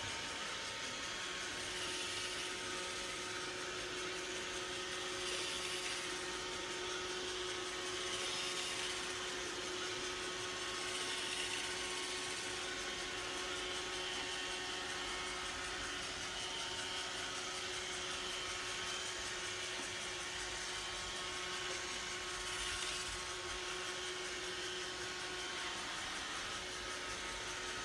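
iRobot Roomba robot vacuum running: a steady motor whine over a hiss, swelling slightly every few seconds.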